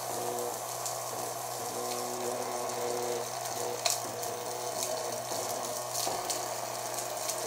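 Small battery-powered fan motor of a bottle-and-cardboard DIY toy vacuum cleaner running steadily, whirring with a rush of air and two sharp ticks about four and six seconds in. The suction is weak: the builder says it stops building vacuum once some rubbish has collected inside.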